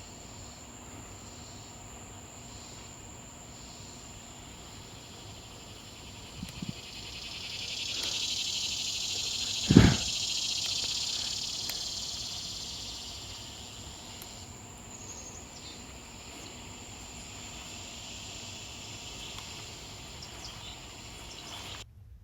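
A cicada's buzzing call swells up, holds, then fades over several seconds against outdoor ambience. A single sharp thump comes about ten seconds in. Near the end the sound cuts out abruptly where the recording stops.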